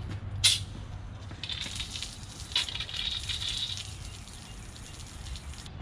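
Sun Joe electric pressure washer spraying a jet of water onto an asphalt driveway: a steady hiss that starts about a second and a half in and cuts off sharply near the end. A single click comes about half a second in.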